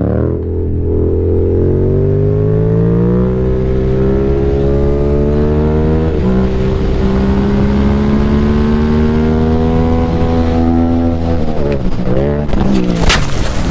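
A vehicle engine under hard acceleration, its pitch climbing steadily with brief dips about 3 and 6 seconds in as it shifts up. Near 12 seconds the revs swoop down and up as the throttle comes off, and a short loud blast of noise follows just before the end.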